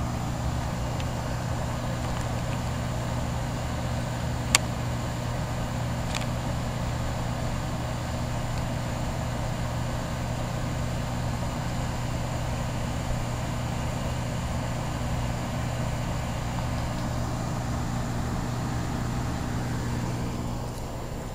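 1980s Carrier Round One heat pump condensing unit running in cooling mode: a steady compressor hum under the whoosh of the condenser fan. A sharp click about four and a half seconds in, and the sound gets a little quieter near the end.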